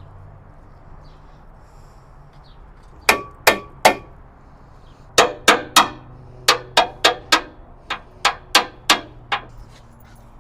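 Hammer blows ringing on steel, knocking a forklift's hydraulic cylinder loose: three strikes, a short pause, then about a dozen more in quick succession.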